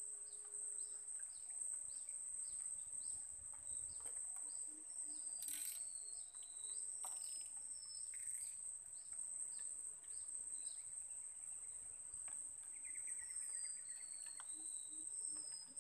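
Riverside insects and birds: a steady high insect buzz, with a bird repeating short falling notes about twice a second for most of the time, then a buzzy trill and a few falling whistles near the end.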